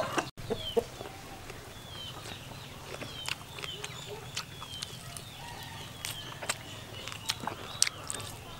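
Chickens clucking, with short high peeps that fall in pitch, repeating every second or so, and scattered sharp clicks.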